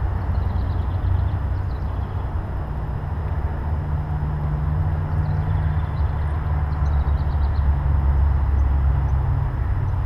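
Outdoor ambience dominated by a steady low rumble, with faint short songbird chirps at intervals above it.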